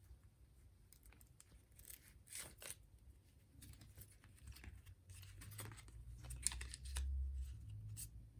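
Close handling noises: a string of short rustles and scrapes, with soft low thuds in the second half.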